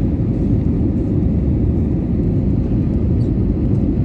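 Steady low rumble of engine and airflow noise inside a jet airliner's cabin during the final moments of a landing, with a faint steady tone above it.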